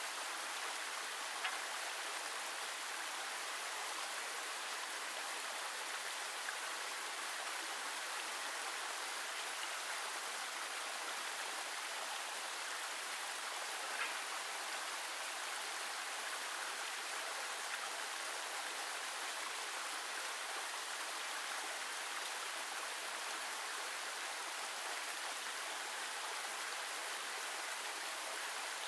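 Steady rushing of a small stream cascading over rocks, with a few faint knocks, the clearest about fourteen seconds in.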